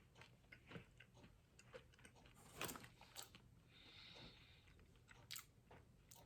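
Faint chewing of a soft, chewy lactation cookie with oats and chocolate, heard as scattered small mouth clicks and soft breaths.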